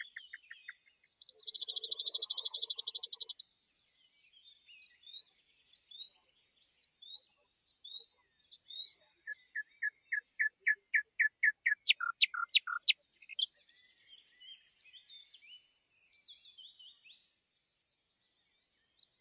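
Songbird singing in varied phrases: a fast trill, then a slow series of rising whistled notes, then a run of repeated notes that grows louder about two thirds of the way through, followed by softer twittering.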